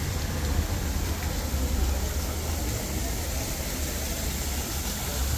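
Outdoor street-festival crowd ambience: a wash of crowd noise over a steady low rumble.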